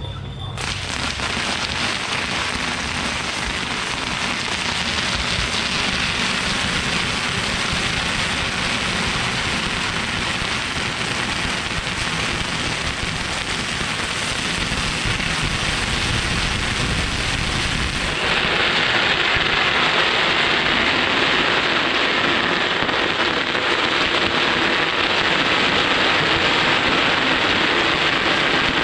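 A long string of firecrackers going off in a dense, unbroken crackle, turning louder and brighter about eighteen seconds in.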